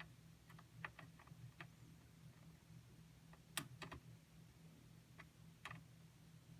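Faint, scattered small clicks and taps of tools and hands working on a TV power board during soldering, the loudest a quick double tap about halfway through, over a low steady hum.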